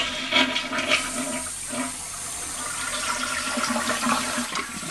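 Older Kohler Highline toilet flushing, its tank filled to the overflow tube: a gush of water, loudest in the first second, settling into a steady rush of water down the bowl.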